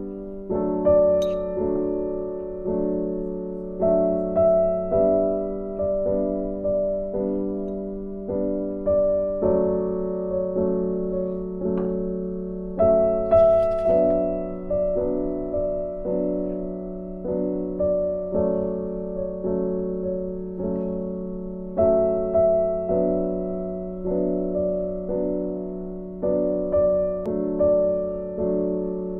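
Background piano music: a slow, gentle melody of single struck notes, each fading away before the next.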